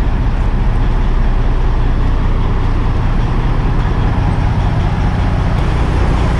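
Semi truck's diesel engine running steadily at low speed, an even low rumble with no change.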